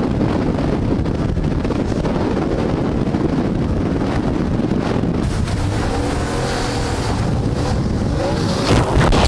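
Heavy wind buffeting on the microphone over the running outboard engine of a D-class inshore lifeboat and water rushing past the hull as it drives through surf. Near the end a louder surge of noise as the boat climbs into a breaking wave.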